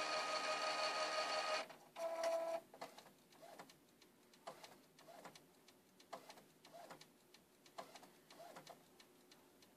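Epson Stylus Photo RX595 inkjet printer charging ink after a cartridge change: its mechanism whines steadily for about a second and a half, whines again briefly a little later, then goes on with short, quieter whirs and ticks every half second or so.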